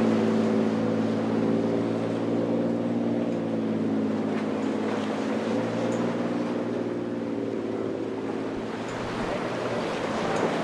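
Motorboat engine droning steadily while the hull runs through rough, breaking waves, with splashing wash and surf underneath. The engine drone weakens near the end as the surf noise rises.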